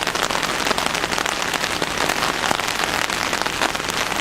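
Heavy rain falling steadily, a dense patter of drops with fine clicks all through.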